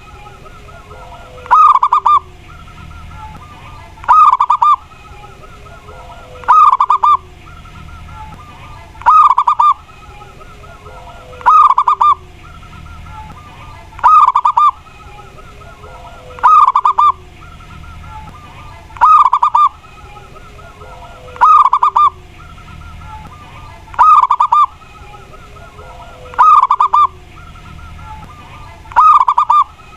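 Zebra dove (perkutut) cooing: a loud, rolling trilled phrase, repeated at even intervals about every two and a half seconds.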